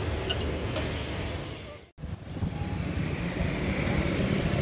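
Steady low rumble of road traffic, cars and motorbikes passing, broken by a brief dropout about two seconds in.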